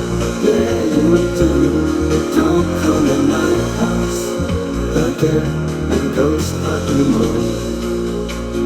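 Background music: a rock-style instrumental with guitar and bass.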